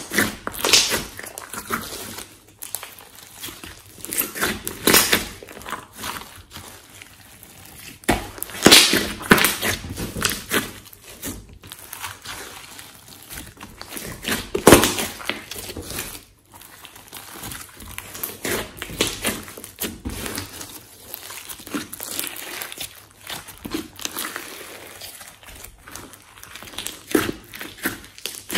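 A large mass of glossy slime being squeezed, folded and pressed by hand, giving wet squelches with irregular sharp clicks and pops. The loudest pops come about a second, nine and fifteen seconds in.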